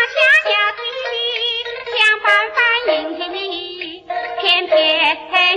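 A high voice singing a 1940s-style Chinese popular song with a wavering vibrato, over steady instrumental accompaniment.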